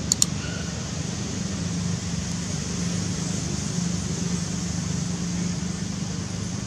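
Steady low hum with a hiss of outdoor background noise, and two sharp clicks right at the start.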